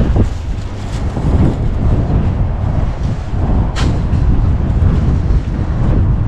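Steady road and engine rumble inside a moving car's cabin, with a single sharp click about four seconds in.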